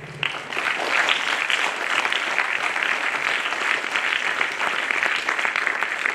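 Audience applauding: many hands clapping at once. It breaks out just after the start and goes on steadily.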